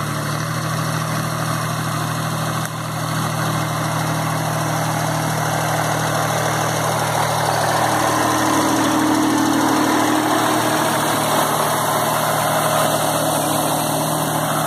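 VST Mitsubishi Shakti VT 224 mini tractor's small diesel engine running steadily, getting a little louder after about three seconds.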